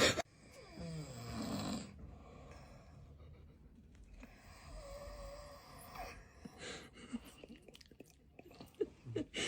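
A person snoring: two long, noisy breaths a few seconds apart, the second with a faint wavering whistle.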